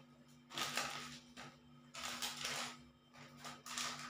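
Paper packaging crinkling and rustling as it is handled and unfolded, in three bursts of about a second each.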